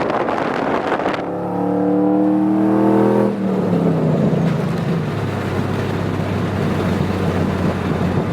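A 5.3 V8 pickup with long-tube headers and an aftermarket exhaust pulling under throttle, its engine note climbing. A little over three seconds in the throttle is released and the note drops and falls away to a steady lower drone as the truck cruises.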